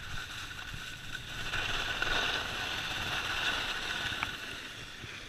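Skis sliding and scraping over groomed snow, a steady hiss that swells in the middle and eases toward the end, with one short click near the end.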